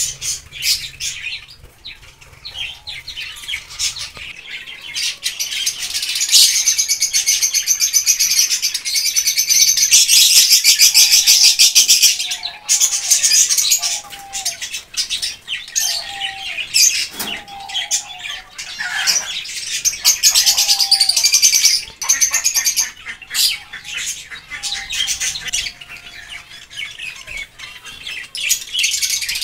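A crowd of small cage birds chirping and chattering all at once, busiest and loudest in two stretches, with a lower short call repeated several times in the middle.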